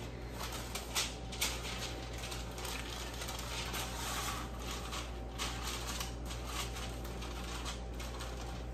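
Aluminium foil lining a baking pan crinkling and rustling as it is rubbed with a wrapped stick of butter, with a few sharper crackles, the loudest about a second in. A steady low hum runs underneath.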